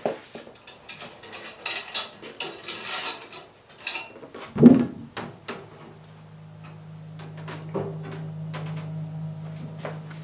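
Clicks, knocks and clatter of a styrene sheet and the metal clamp frame of a vacuum forming machine being handled, with a loud thump a little before halfway. A steady low machine hum then starts and keeps on.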